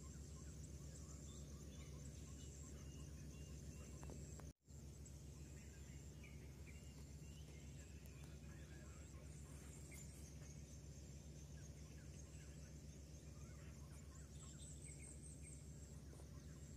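Faint dawn hilltop forest ambience: a steady high insect trill with scattered bird calls over a low hum, broken by a brief dropout about four and a half seconds in.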